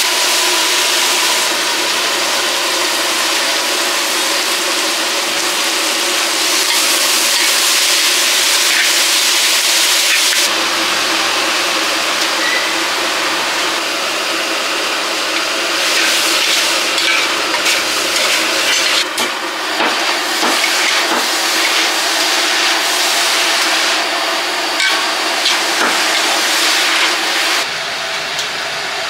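Minced pork sizzling with a steady hiss in a large aluminium wok, while a metal spatula scrapes and knocks against the pan as it is stirred. Near the end the sound changes as shredded vegetables are stir-fried in the same way.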